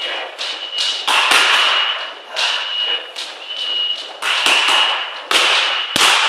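Boxing gloves striking leather focus mitts in quick combinations: about a dozen sharp slaps in irregular clusters, each with a short echo off the room.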